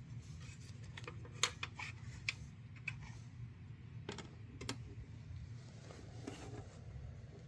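A few scattered light clicks and taps, about half a dozen sharp ones, as a low-profile graphics card and its metal bracket are handled and lined up in a small PC case, over a faint low room hum.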